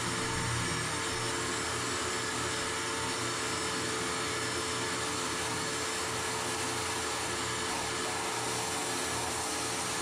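Wet/dry shop vacuum running steadily with a constant motor whine, its hose sucking concrete drilling dust out of anchor holes in a concrete slab.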